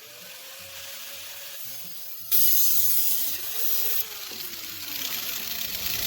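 Power cutting tool cutting through an exhaust pipe, its motor pitch wavering under load. About two seconds in the cut turns loud with a harsh hiss, easing off near four seconds.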